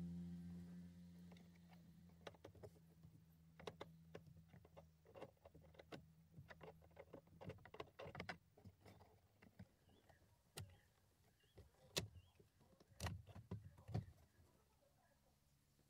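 Faint clicks, taps and knocks of a screwdriver and plastic dashboard trim as the car stereo's surround panel is worked loose and pulled from the dash, with several sharper clicks in the last few seconds.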